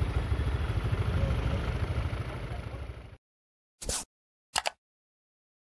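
Tractor engine running steadily, fading and cutting off about three seconds in. Then two short sounds, about 0.7 s apart.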